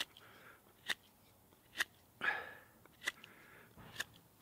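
Folding-knife blade whittling shavings off a stick of fresh wood: short, crisp cutting strokes about once a second, with a longer, louder rasping stroke about two seconds in.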